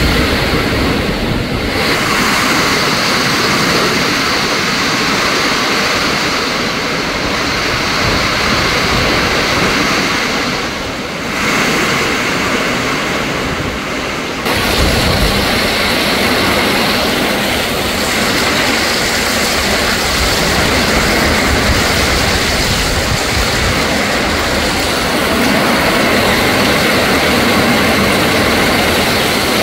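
Strong storm wind gusting through trees and foliage with rain, buffeting the microphone with an irregular low rumble. The noise is loud and continuous, easing briefly about eleven seconds in.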